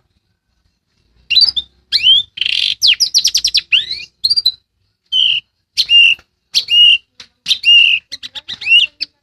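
A small songbird chirping and singing in quick, high-pitched phrases after a second of silence: sharp chirps, a fast trill of repeated notes about three seconds in, then a series of short whistled notes that slide in pitch.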